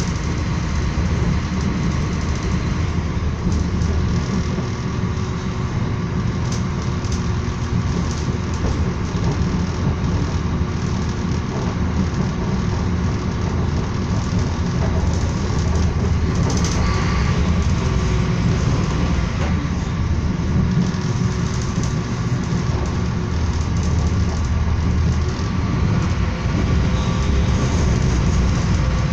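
Steady low rumble of a moving train heard from inside the passenger carriage, the wheels running on the rails, with a brief sharper rattle about 16 seconds in.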